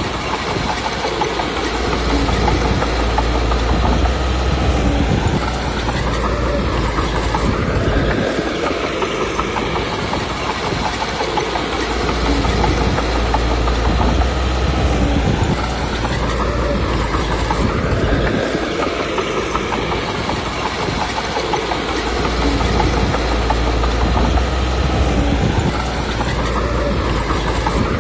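Small crawler bulldozer working: its diesel engine running under load, with the steel tracks clanking continuously. The engine's low rumble swells and eases three times, about every ten seconds, as it pushes and backs off.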